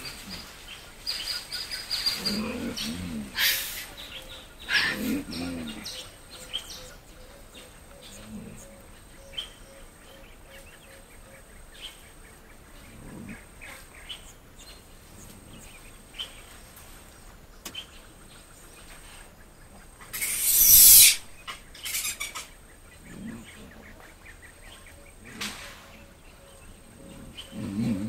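Mandrills giving short, low grunts every few seconds, against a background of various birds chirping and calling. About twenty seconds in there is a loud burst of noise lasting about a second.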